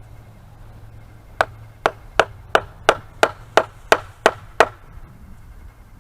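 Ten quick hammer blows, about three a second, during the forging of a steel hold-down.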